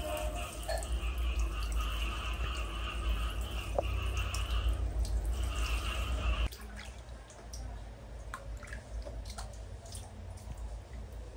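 Handheld shower head spraying water in a steady hiss onto a baby monkey and a tiled floor, cutting off suddenly about six and a half seconds in. After that, soft drips and small splashes of water in a plastic bathing basin.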